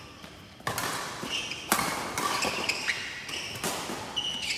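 Badminton doubles rally: several sharp racket hits on the shuttlecock, the loudest a little under two seconds in, with shoes squeaking on the court floor between the hits.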